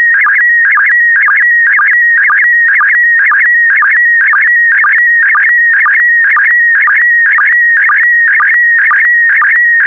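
Slow-scan television (SSTV) signal in PD120 mode: a warbling electronic tone near 2 kHz, broken about twice a second by a short low sync pulse. Each pulse marks the start of the next pair of image lines being sent.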